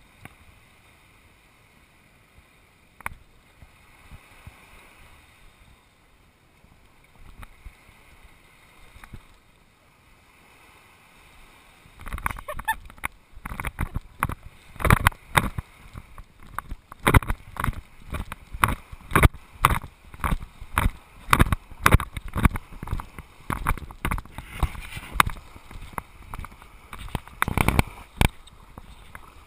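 Faint for about twelve seconds, then footsteps on sand, about two a second, with the knocks of a body-worn camera jostling at each step.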